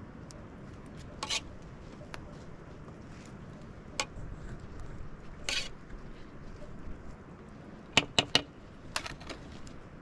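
Metal ladle clinking against a metal cooking pot and dishes while stirring: scattered single clinks, with a quick run of three loud ones about eight seconds in.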